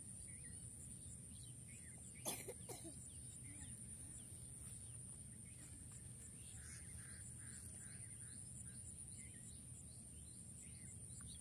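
Quiet riverside ambience: small birds chirping, with a run of about six quick notes near the middle, over a steady high insect drone. A single sharp knock, about two seconds in, is the loudest sound.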